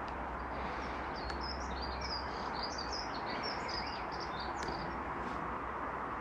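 A songbird singing a rapid jumble of short high chirps for a few seconds, over a steady outdoor background hiss.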